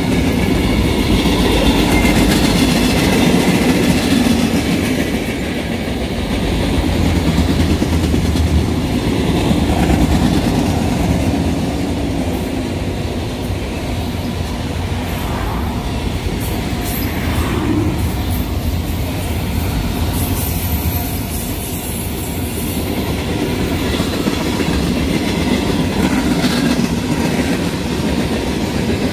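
Union Pacific manifest freight train rolling steadily past: a continuous rumble of boxcars, autoracks and tank cars, with wheels clacking over the rails.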